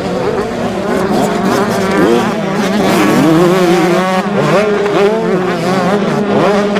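Several 125cc two-stroke motocross bike engines at racing revs, their pitch rising and falling as the riders roll the throttle on and off, over a steady drone of further bikes.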